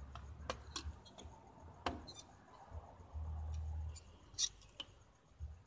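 Light clicks and taps from hands handling a brass tube and small parts, with sharper ticks about half a second, two seconds and four and a half seconds in, and a low rumble of handling noise around three to four seconds in.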